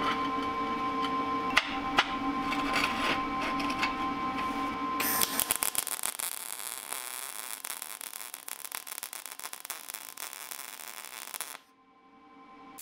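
Background music with steady tones, then about five seconds in a wire-feed welder's arc starts and runs as a dense crackling sizzle as a bead is laid on steel bar stock. It stops abruptly near the end.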